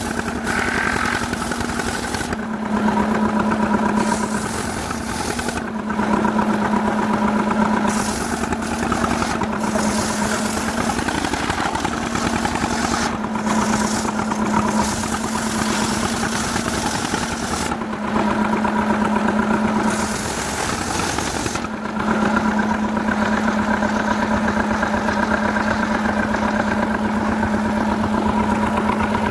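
Stihl two-stroke chainsaw running at high speed, cutting jackfruit wood, its steady high engine note easing off briefly a few times.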